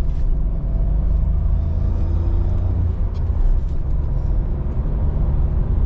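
Car driving along a country road, heard from inside the cabin: a steady low rumble of tyres and engine.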